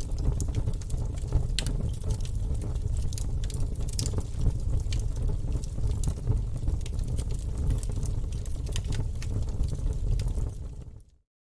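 Wood fire burning in a fireplace: a steady low rumble of flames with frequent sharp crackles and pops from the logs. Near the end the sound fades quickly to silence.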